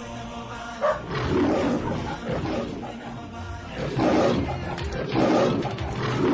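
A big cat growling in several loud bursts, with music underneath.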